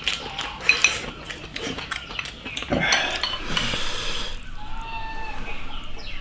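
Chopsticks clicking and scraping against ceramic rice bowls during a meal, in a string of short knocks. A brief pitched call sounds about five seconds in.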